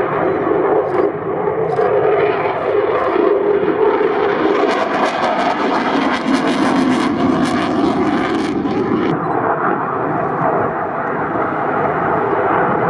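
Eurofighter Typhoon FGR4's twin Eurojet EJ200 turbofans in display flight: a continuous loud jet roar, harsher and crackly from about five to nine seconds in.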